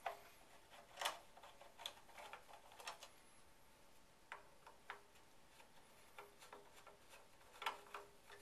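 Faint, irregular small clicks and ticks of a screwdriver backing two screws out of the end of a conveyor power supply housing, with metal parts tapping lightly.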